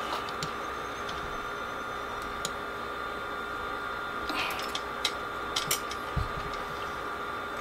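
Scattered light metal clicks and taps as a motorcycle carburetor is handled and taken apart on a workbench, over a steady electrical hum.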